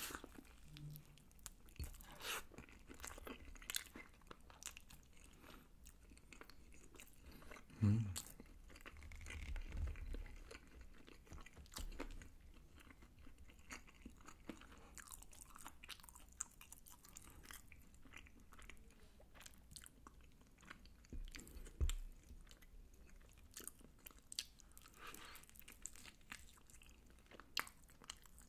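Close-up chewing and crunching of sauced fried chicken eaten with rice: a string of small crisp crackles from the fried coating mixed with chewing. A couple of louder low thuds stand out, about a third of the way in and again about three quarters of the way through.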